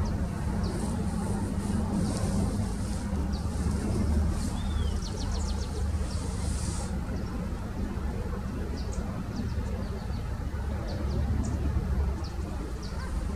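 Steady low rumble of distant road traffic, with small birds giving short high chirps throughout and a quick trill about five seconds in. A high hiss stops abruptly about seven seconds in.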